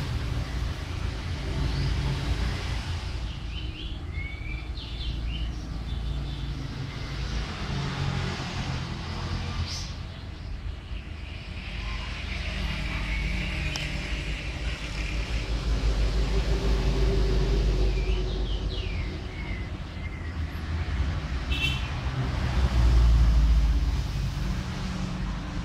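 Steady low background rumble like distant road traffic, swelling twice, with a few faint high chirps now and then.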